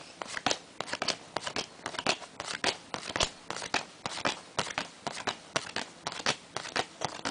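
A stack of Topps basketball trading cards being flipped through one after another, each card giving a short, crisp snap, about three or four a second in an even rhythm.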